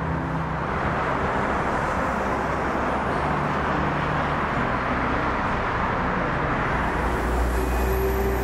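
Street traffic: a steady wash of passing cars, with a deeper engine drone swelling near the end as a heavier vehicle comes close.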